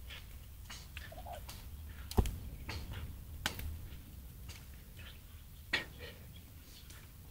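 Light handling noises while paint stripper is brushed on and poured: scattered clicks and taps from the brush, a paper cup and a bottle, with one sharp knock about two seconds in.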